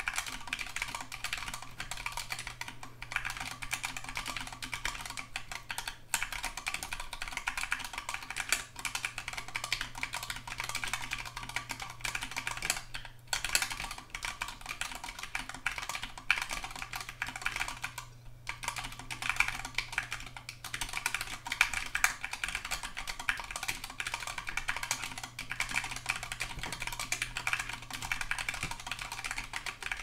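Steady fast typing on a Preonic Rev 3 ortholinear mechanical keyboard in an aluminium case, fitted with lubed KBDFans T1 tactile switches and Acute keycaps. It is a dense run of keystroke clacks, quite loud and not very thocky, with short pauses about 13 and 18 seconds in.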